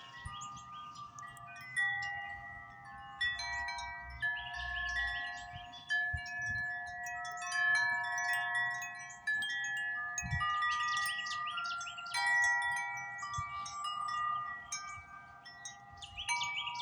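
Grace Note wind chime ringing in the wind: its tubes are struck at irregular moments, so several clear, sustained tones overlap and ring on together.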